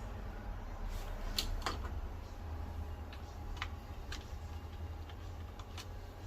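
About a dozen light, sharp clicks at irregular intervals, the strongest about a second and a half in, over a low steady hum.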